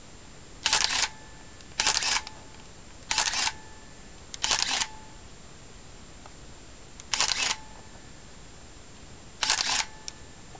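Minolta Maxxum 400si film SLR body firing its shutter six times. Each release is a short clack of mirror and shutter with the built-in motor winding on, lasting about a third of a second, and the releases come one to two and a half seconds apart.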